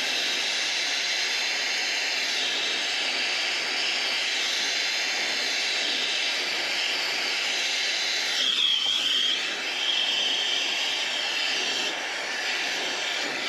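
Brazing torch flame hissing steadily as it heats a copper refrigerant line joint on an evaporator coil for brazing, with a brief high whistle from the flame about two-thirds of the way in.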